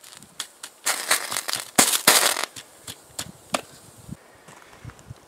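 High-current electrical arcing from four truck-type lead-acid batteries in series (about 48 V) shorted through a copper rod across a circuit board. It makes sputtering crackles and sharp cracks in bursts, the two loudest about one and two seconds in, then scattered cracks as it dies down.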